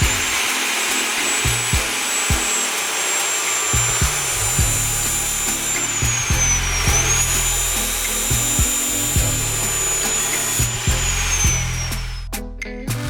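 Bosch GCO 240 metal cut-off saw running with a high whine and steady hiss. The whine dips briefly about seven seconds in, then falls away near the end as the motor winds down. Background music with a beat plays underneath.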